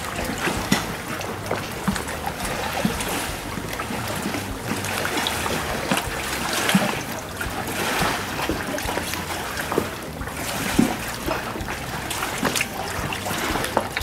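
Small sea waves lapping and washing against a wooden pier, swelling and easing every second or two, with a few light knocks.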